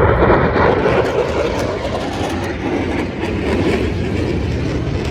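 Boeing EA-18G Growler's twin turbofan engines roaring on a display pass, loudest about a second in and easing slightly after, with a ragged crackle in the noise.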